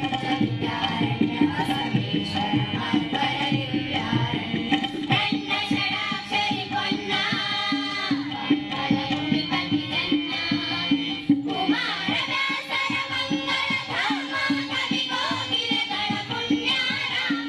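Indian-style music with a busy hand-drum beat under a melody.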